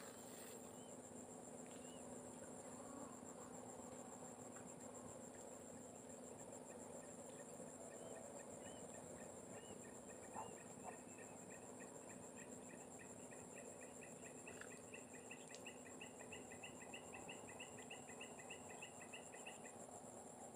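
Faint steady insect chorus, a high pulsing trill that never stops. From about halfway, another animal joins with a rapid repeated call of short rising chirps, about three a second, which stops shortly before the end.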